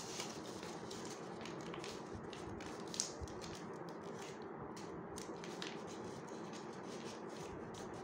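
Origami paper rustling and crackling as it is folded and creased by hand: a string of small, irregular crinkles over a steady low hiss, with one sharper crackle about three seconds in.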